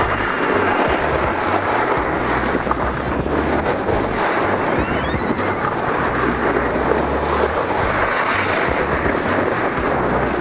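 Snowboards sliding and scraping over the snow in a steady hiss, with wind buffeting the action camera's microphone in low rumbles that come and go.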